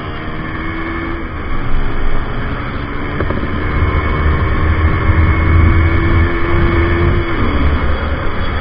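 Wind rushing over a KTM RC 200 ridden at speed, with its single-cylinder engine holding a steady note that drops away about seven seconds in. The wind buffeting swells louder toward the middle.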